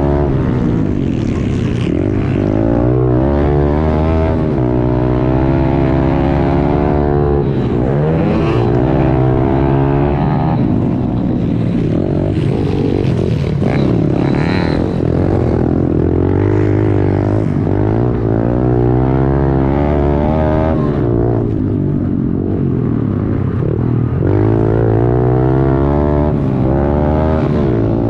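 Honda CRF110 pit bike's single-cylinder four-stroke engine at race pace, heard from on the bike, its pitch climbing and dropping again and again as the rider opens and closes the throttle and shifts.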